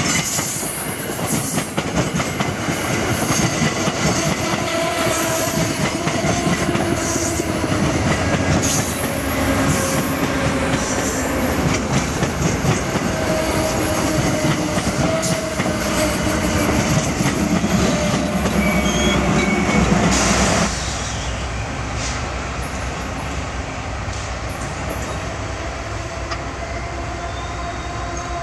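Amtrak stainless-steel passenger cars rolling past close by, their wheels rushing and clattering over the rails with faint held squealing tones. About two-thirds of the way through it cuts suddenly to the quieter, steady rumble of another passenger train approaching from a distance.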